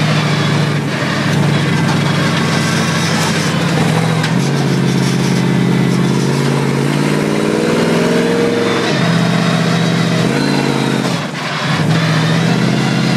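Monster truck's engine heard from inside the cab, running steadily, then revving up with a rising pitch for about four seconds from about four seconds in. It drops back, revs briefly again, and settles to a steady run near the end.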